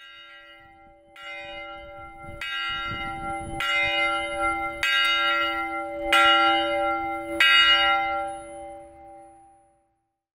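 A church bell tolling, struck about seven times at a steady pace of roughly one stroke a second. The strokes grow louder, then the ringing fades away near the end.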